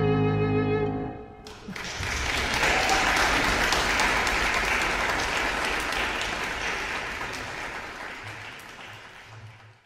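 Violin and piano end a piece on a held final chord that stops about a second in; after a short pause, audience applause starts and slowly fades out.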